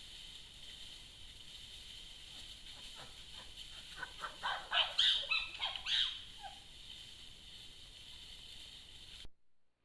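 A series of chimpanzee calls, starting about three seconds in as short calls that come quicker and louder, peaking a couple of seconds later and then stopping. Under them runs a steady high-pitched drone, which cuts off near the end.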